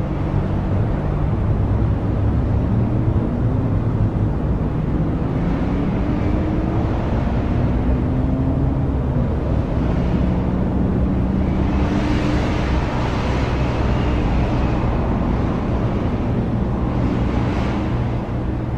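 City street traffic: a steady engine rumble with several vehicles passing, swelling up and fading away, the clearest about two-thirds through and again near the end.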